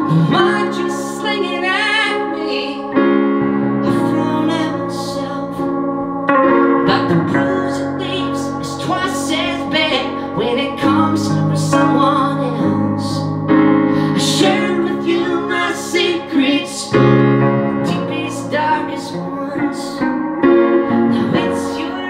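Live song passage without lyrics: guitar and keyboard playing together, the keyboard holding chords that change every second or two under plucked guitar notes.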